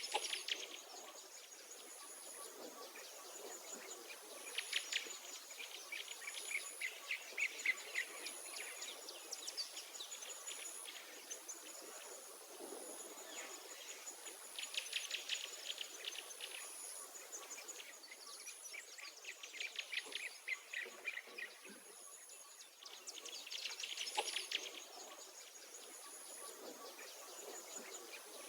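Outdoor ambience of songbirds singing rapid trills of a second or two, recurring every few seconds. Under them a thin, high-pitched insect chirp repeats about once a second.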